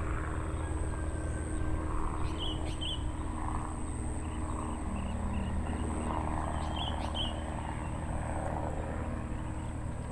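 Steady low hum of a distant engine, with a few short bird chirps about two and a half and seven seconds in.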